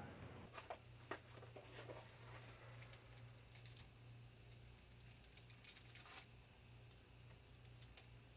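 Near silence: a steady low room hum with faint scattered clicks and rustles.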